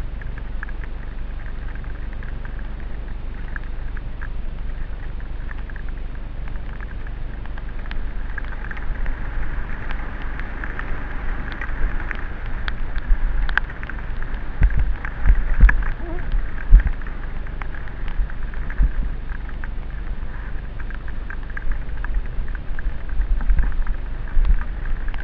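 Helmet-camera audio of a downhill mountain bike run on a wet dirt trail: steady wind rush and tyre noise on the wet ground, with rattles and knocks from the rough track. The heaviest thumps come about halfway through and again near the end.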